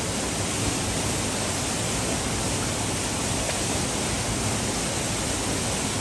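Rocky mountain stream rushing over small cascades and boulders, a steady, even hiss of falling water.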